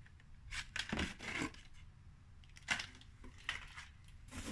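Plastic-wrapped packages handled over an open cardboard box: rustling and light knocks in several short bursts.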